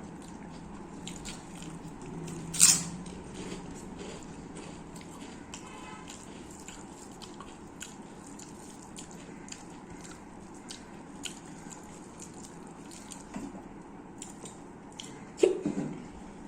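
A person eating biryani close to the microphone: chewing with small wet mouth clicks throughout, and two louder crunching bites, one about three seconds in and one near the end.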